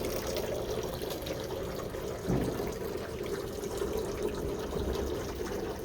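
Steady background din of a crowded indoor convention hall, a hubbub of many distant voices and footsteps, with a brief nearer voice about two seconds in.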